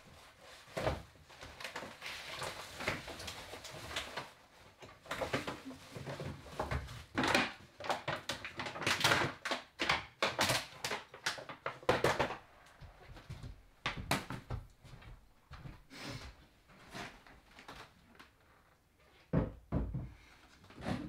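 Irregular knocks, clatters and rustling from MDF panels and workshop odds and ends being picked up, moved and set down, busiest in the middle, with a couple of low thuds near the end.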